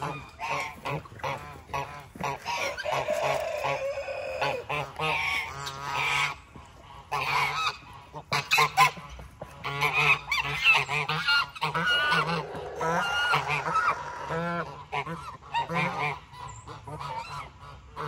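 Domestic geese honking repeatedly.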